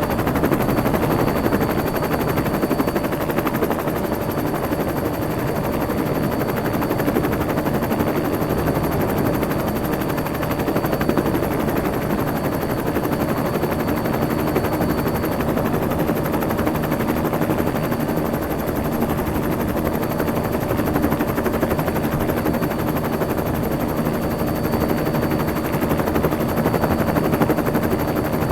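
Helicopter running steadily, its rotor blades beating in a fast, even chop under a constant thin high whine.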